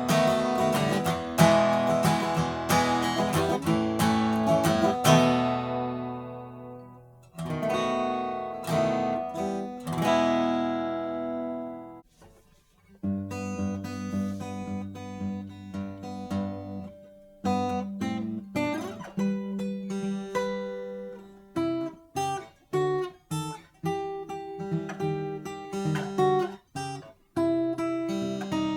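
Martin D-1 Authentic 1931 12-fret dreadnought steel-string acoustic guitar played solo: strummed chords, two of them left to ring out and fade, a brief pause about twelve seconds in, then picked notes and short, choppy chords.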